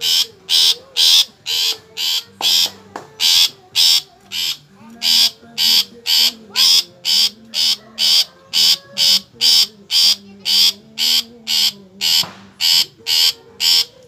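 Long-tailed shrike (cendet) giving a long, steady series of loud, harsh calls, about two a second.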